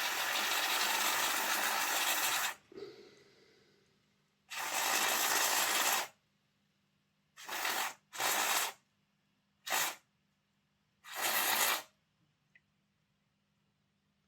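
Aerosol contact cleaner spraying in six hissing bursts into a very dirty model locomotive motor to flush it out: one long spray of about two and a half seconds, a second of about a second and a half, then four short squirts.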